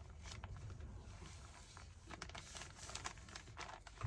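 Paper being handled and folded: faint rustling and crinkling with small scattered taps, and one sharper click at the very end.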